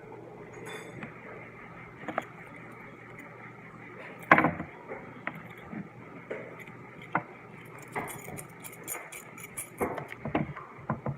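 Light clicks and clinks of small hard objects being handled, over a faint steady room hum. The loudest knock comes about four seconds in, and a quick patter of faint ticks follows near the end.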